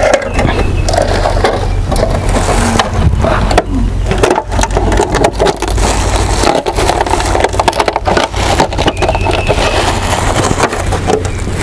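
Dry wood crackling and snapping: many sharp cracks in quick succession over a steady low hum.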